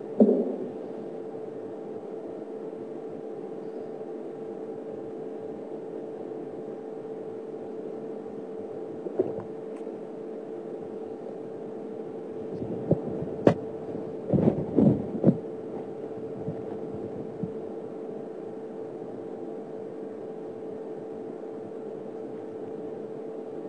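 A steady, single-pitched hum with low background noise. There is a loud thump just after the start, and a cluster of knocks and clicks about halfway through.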